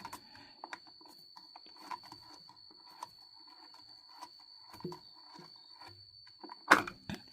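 Faint scattered clicks and rustles under a steady thin high-pitched whine, with one louder knock near the end.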